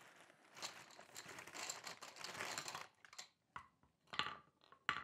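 A plastic bag of shotgun hulls rustling and crinkling for the first few seconds, then a few light knocks as the plastic hulls are set one by one into a wooden loading block.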